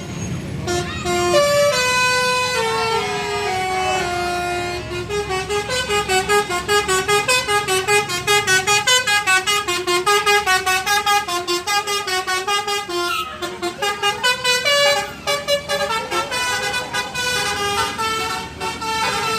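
Basuri telolet musical horn on a bus playing a melody of quick stepped notes: a falling run of notes, then a long stretch of fast repeated alternating notes, and another run near the end.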